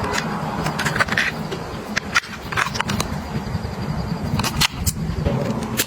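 Hands handling and setting down packaged groceries: a series of sharp taps and clicks over a steady low hum.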